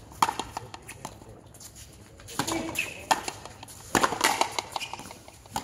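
Frontenis rally: several sharp cracks of the rubber ball struck by strung rackets and slapping off the concrete fronton wall, each ringing on in the court, with rubber shoe soles squeaking on the concrete floor between shots.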